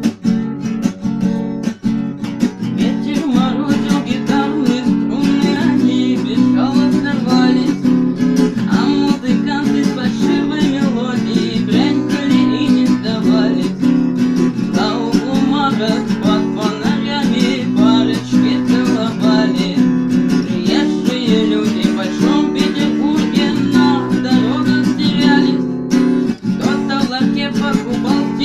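Acoustic guitar being strummed and plucked, playing continuously.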